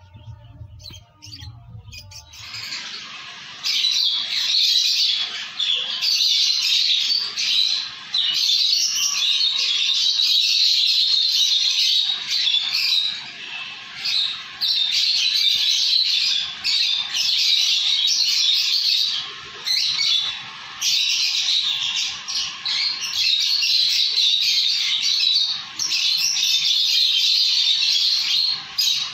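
Peach-faced lovebirds calling in a dense run of high chirps that starts about two seconds in and keeps going with only brief breaks.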